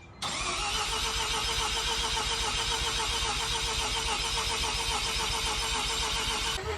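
Mazda rotary engine starting and running loud and steady, with a fast wavering beat. About six and a half seconds in, the higher part of the sound cuts off and a low drone carries on.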